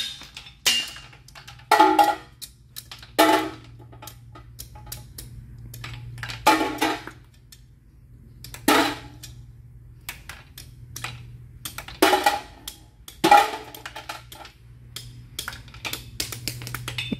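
Lifters being pulled out of a Pontiac 350 V8 block's lifter bores with pliers: irregular metal-on-metal clanks and clinks, about eight louder ones with a short ring, and a quick run of lighter clicks near the end, over a steady low hum.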